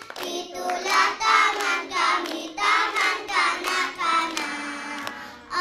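A group of young children singing a song together in unison, with some hand claps along.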